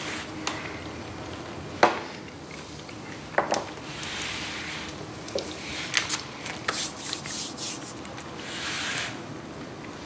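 Small objects being handled: scattered knocks and clicks, the loudest about two seconds in and a quick run of clicks from about six to eight seconds in, with two soft rubbing or brushing sounds of about a second each.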